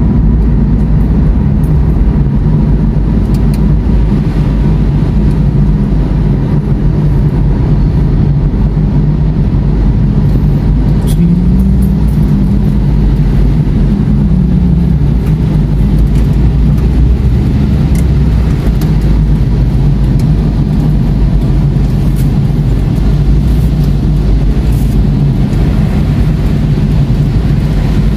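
A car driving on a wet road, heard from inside the cabin: a steady drone of engine and tyres. The engine note rises and falls briefly about halfway through.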